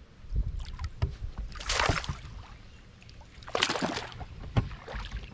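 Splashing water as a hooked fish is played and netted beside a paddleboard: two short, loud splashes about two seconds in and again near four seconds, with a few knocks against the board between them.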